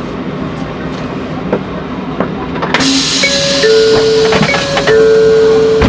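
Low steady rumble inside a Tokaido Shinkansen car. About halfway through it gives way to a sudden, much louder hiss, over which a series of held electronic tones sounds like a chime.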